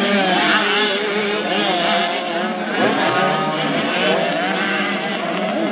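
Several 85 cc two-stroke motocross bike engines revving together, their pitches rising and falling and overlapping as the bikes race on the track.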